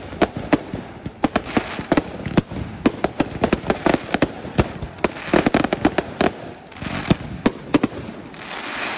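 Fireworks display: rapid sharp bangs of bursting shells, several a second, over continuous crackling and hissing. Near the end a louder hissing rush of sparks builds up.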